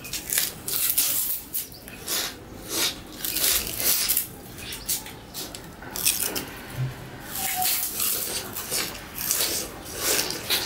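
Two people biting into and chewing raw sugarcane close to the microphone: irregular crisp crunches and tearing of the fibrous stalk, coming in quick uneven bunches.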